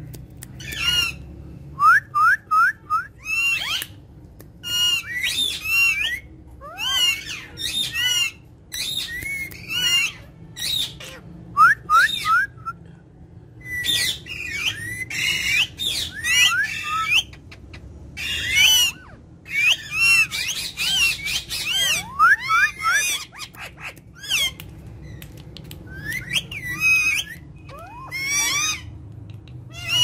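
Alexandrine parakeets calling: a busy string of short, shrill squawks and chirps that sweep up and down in pitch. Some come in quick runs of three or four, with brief pauses between the bursts.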